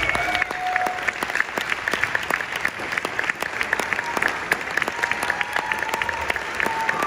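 Audience applauding: a steady stream of many hand claps.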